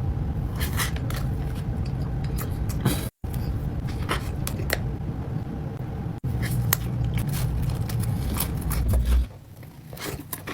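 Close-miked eating of cake: scattered clicks and scrapes of a utensil and bites over a steady low rumble, cut off twice by brief silent gaps.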